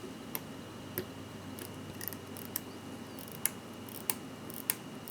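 Irregular sharp clicks and small scrapes of metal tools, such as watchmaker's tweezers and a screwdriver, handling the small steel and brass parts of a hand-wound mechanical watch movement, over a faint steady hum.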